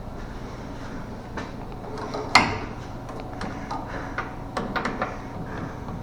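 A single sharp metal clank about two and a half seconds in, then a run of lighter clicks and knocks near the end, from hand tools working on a Chevy Nova's front suspension, over a low steady hum.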